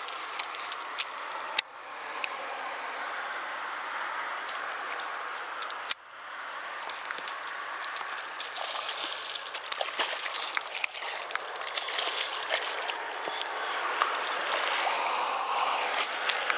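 Water sloshing and splashing over a steady rushing noise, with scattered small ticks and two sharp clicks.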